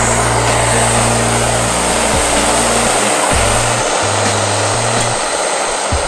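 Backpacking gas canister stove burning at full flame, a steady loud rushing hiss, with background music with a low synth bass underneath.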